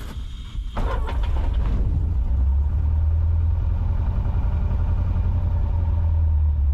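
Cessna 150's four-cylinder Continental O-200 engine catching on the pull starter about a second in, then settling into a steady idle.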